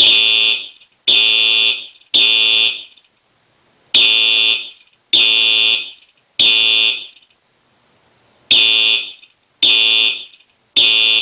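Simplex 4903-9422 horn strobe's high-pitched screeching electronic horn sounding in code 3 (temporal-three) pattern: three short blasts about a second apart, then a pause, the group repeated three times.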